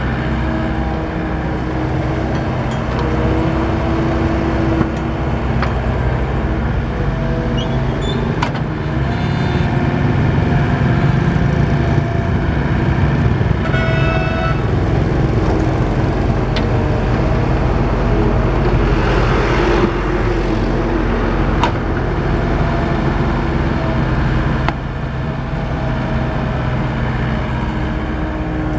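Volvo EW55 wheeled mini excavator's diesel engine running under working load, its hydraulic whine shifting in pitch as the boom and bucket move. There are a few sharp knocks, a brief higher tone about halfway through and a rush of hiss about two-thirds of the way in.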